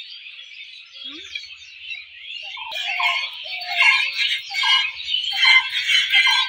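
A chorus of small birds chirping and twittering without a break, growing louder and busier about three seconds in.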